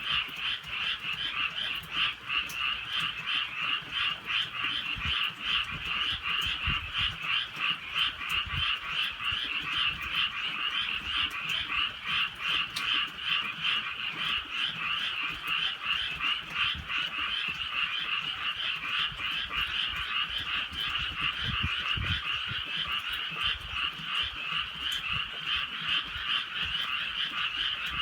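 A dense chorus of many frogs croaking in rapid, overlapping pulses, keeping up without a break, with a light drizzle falling.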